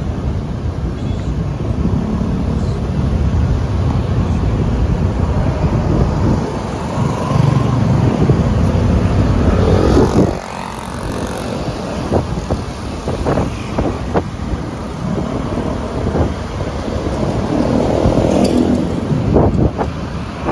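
Riding along a busy street: a steady rush of wind on the microphone mixed with engine and tyre noise from the ride and surrounding motorcycles and cars. The noise eases somewhat about halfway through.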